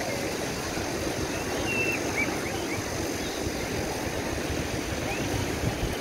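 Wind buffeting the microphone over a steady rush of waves on an open beach, with a few faint brief high chirps.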